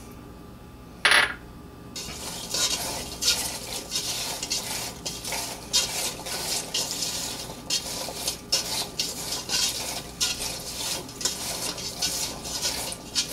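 Hands tossing cut green beans and Korean radish with salt in a stainless steel pot: a continuous rustle of the vegetables with quick scrapes and knocks against the metal. One short sharp clatter, the loudest sound, comes about a second in.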